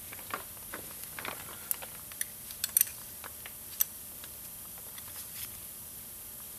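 Light, irregular metallic clicks and taps of a 10 mm wrench working the bolts on the regulator of an excavator's main hydraulic pump, about a dozen in the first four seconds, then only a faint steady hiss.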